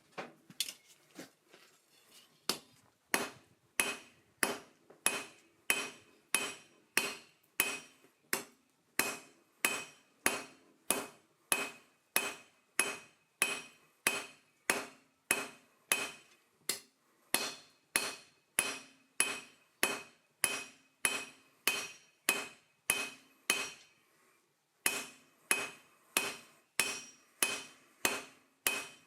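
Blacksmith's hammer striking steel on an anvil at a steady pace of about two blows a second, each blow ringing. A few light taps come first, and there is a short pause about five seconds from the end.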